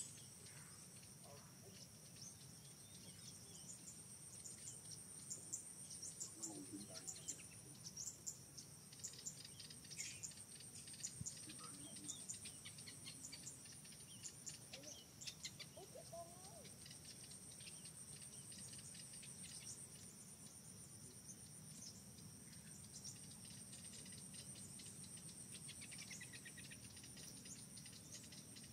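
Faint forest ambience: insects trilling steadily at a very high pitch, the trill pausing briefly a few times, with a flurry of short high chirps through the middle.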